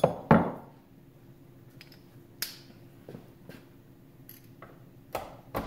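Metal tools being handled: a steel socket extension and torque wrench clinking and clicking as they are fitted onto a torque adapter held in a vise. Two sharp knocks come right at the start, then a scatter of lighter clicks.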